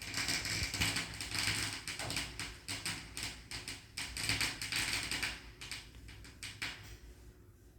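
Crackling firework: a dense run of rapid small pops that thins out and dies away about seven seconds in.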